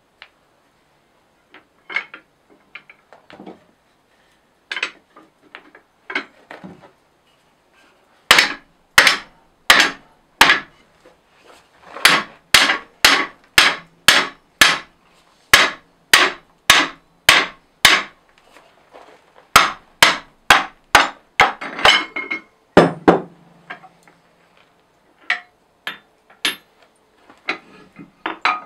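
A hand hammer striking cold steel: a steel block held in a blacksmith's clamp on an anvil. Light metal clinks as the pieces are set in place give way, about eight seconds in, to a run of sharp blows about two a second, with a short pause. One heavier, ringing blow follows, and a few lighter taps come near the end.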